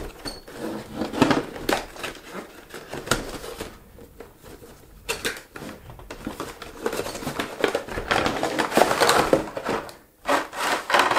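Toy packaging being handled and cut open with scissors: irregular crinkling, rustling and sharp clicks, busiest in the second half.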